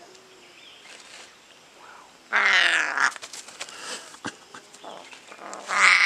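Young African grey parrot giving loud, harsh squawks while handled: one call lasting under a second about two seconds in, and another starting near the end.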